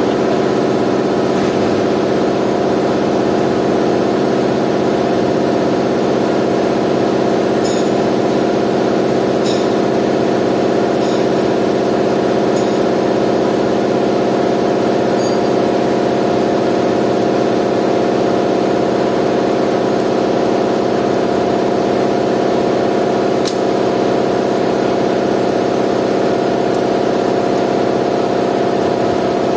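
A steady, loud machine drone that holds one even pitch throughout, with a few faint metallic clicks as engine parts are handled.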